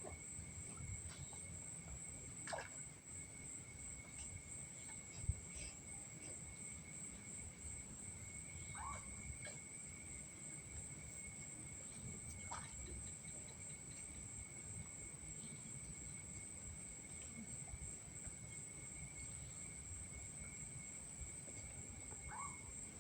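Night insect chorus: crickets holding a steady high-pitched trill, with a second, lower steady trill beneath it. A few brief short calls stand out over it, and there is a single soft knock about five seconds in.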